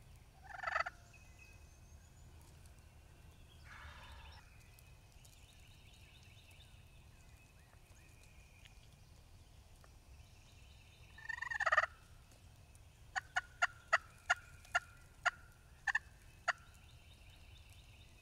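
Wild turkey gobbler gobbling three times, once faintly about four seconds in and loudest just before the twelfth second. A run of about ten short, sharp, evenly spaced turkey yelps follows.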